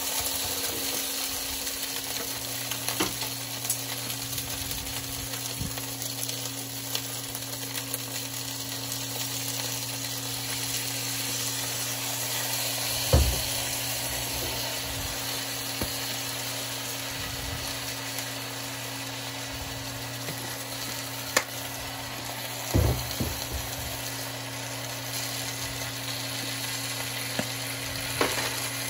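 Chicken breast slices and sliced onion sizzling steadily in a frying pan, over a steady low hum. A few sharp knocks from handling utensils and bottles come about halfway through and near the end.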